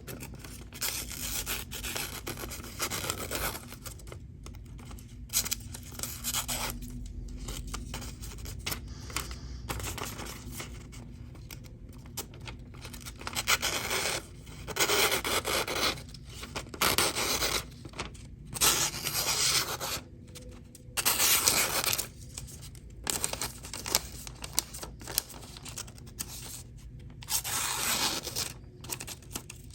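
A steel knife blade scraping in irregular strokes, some of them short, with several louder strokes lasting about a second each in the second half.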